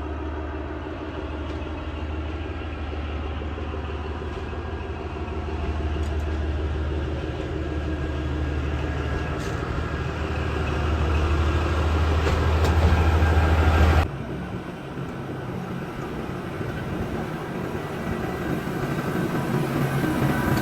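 Metre-gauge tourist train running, its engine giving a steady low hum that grows louder and then stops abruptly about fourteen seconds in, leaving a quieter rumble.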